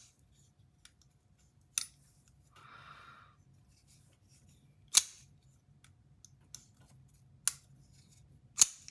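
A few scattered sharp metallic clicks from handling a button-lock folding knife and its pivot during reassembly, the loudest about five seconds in, with a brief soft rub about three seconds in.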